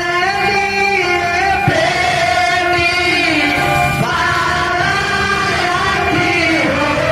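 A Bhojpuri kanyadan wedding song: a singer's voice carried over instrumental accompaniment, with long gliding melodic lines.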